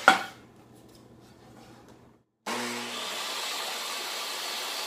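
A sharp clunk as the table saw's rip fence is set for the cut. About two and a half seconds in, the jobsite table saw's motor starts running with a loud, steady whir that stops suddenly at the end.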